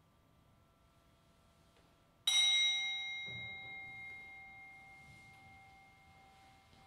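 A single strike on a small bell-like chime about two seconds in, ringing clearly with several high, clear tones that fade slowly over about four seconds.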